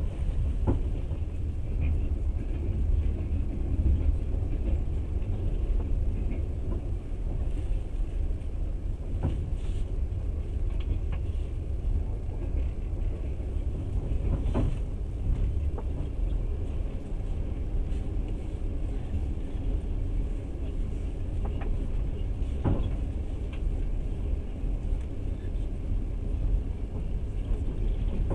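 Passenger train running along the line, heard from inside the carriage: a steady low rumble of the wheels on the rails, with a few sharp clicks here and there.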